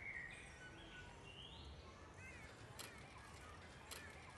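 Faint outdoor ambience with birds chirping. Two sharp clicks come about a second apart, near the end.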